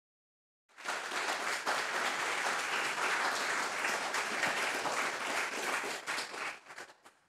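Audience applause, starting under a second in and dying away near the end.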